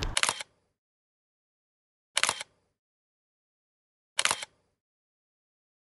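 Camera shutter click, three times about two seconds apart, with dead silence between.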